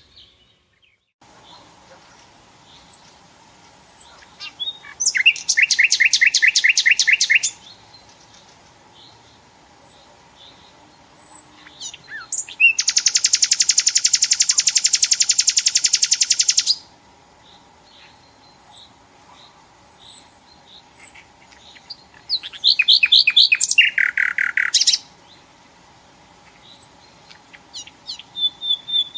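Nightingale singing: three long bursts of rapid repeated notes, each lasting two to four seconds, with short thin high chirps in the pauses between.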